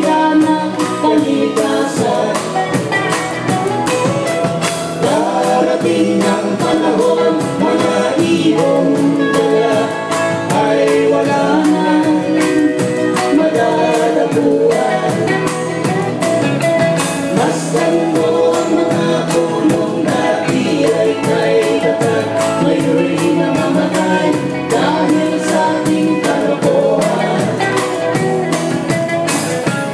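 Live band playing a folk-rock song with singing, over acoustic and electric guitars and a drum kit keeping a steady beat.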